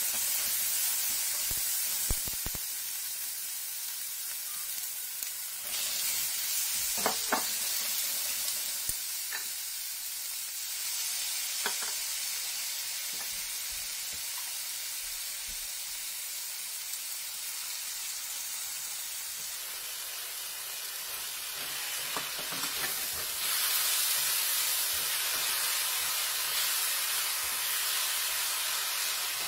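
Onion, garlic and tomato, then raw shrimp, sizzling in hot oil in a stainless steel wok, with a spatula scraping and knocking against the pan now and then. The sizzle grows louder about six seconds in and again near the end.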